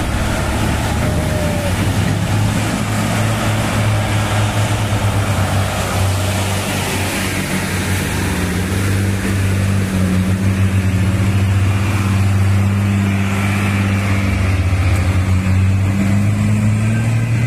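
Heavy diesel truck engines running steadily under load as the trucks climb a steep grade: a continuous low drone, its pitch rising slightly near the end.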